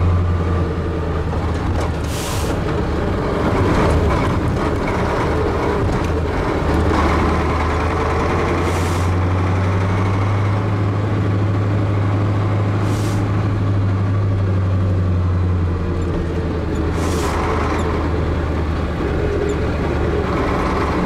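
Ural truck engine running steadily under way on a rough dirt road, heard from inside the cab. Four short hisses of air from the truck's air brakes come a few seconds apart.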